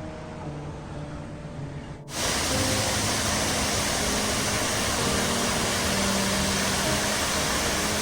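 Background music, then about two seconds in an abrupt cut to a loud, steady rushing noise, with the music faint beneath it.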